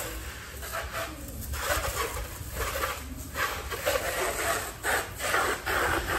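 Water from a garden hose spraying and splashing onto a motorcycle as a pre-rinse to knock the dirt off before soaping: an uneven hiss that rises and falls.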